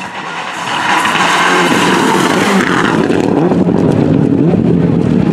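Toyota Celica GT-Four rally car's turbocharged four-cylinder engine at full throttle as the car rushes past close by. From about three seconds in, the engine note rises and falls in pitch as it drives away.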